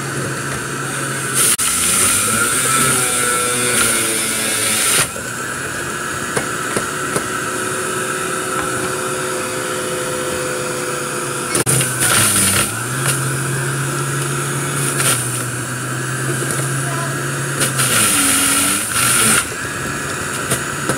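Electric juicer motor running steadily while juicing fruit and vegetables, with several louder, harsher stretches of one to three seconds each.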